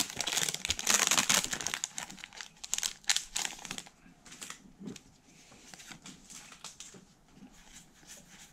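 Foil wrapper of a Pokémon trading-card booster pack crinkling and tearing as it is ripped open, loudest for the first three and a half seconds. After that come quieter rustles and clicks of the cards being slid out and handled.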